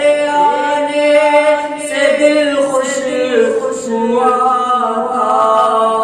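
A man singing an unaccompanied naat into a microphone, holding long drawn-out notes that step from pitch to pitch without words.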